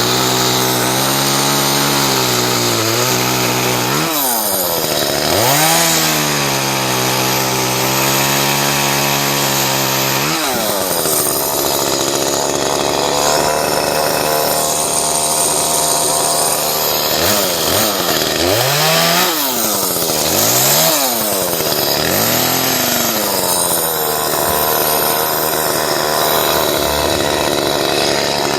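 Chainsaw running through a cut, its engine held at speed and then repeatedly swooping down in pitch and rising again as the throttle is blipped and released, several times in quick succession in the second half.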